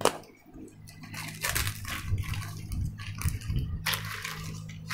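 Clear plastic wrapping crinkling and rustling as a plastic shape-sorter ball toy is unwrapped and pulled open. There is a sharp click at the start, with louder rustling about a second and a half in and again near four seconds, over a steady low hum.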